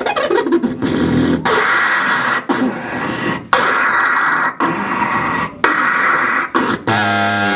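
Human beatboxing into a handheld microphone: long hissing, breathy sounds broken by short gaps about once a second, then a deep buzzing note with a wavering pitch near the end.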